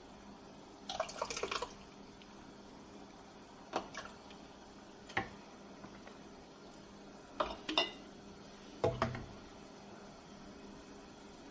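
A ladle clinking and tapping against a canning funnel and glass jars as chili is spooned into quart jars, in about five short bursts with a duller knock about three-quarters of the way in. A low steady hum runs underneath.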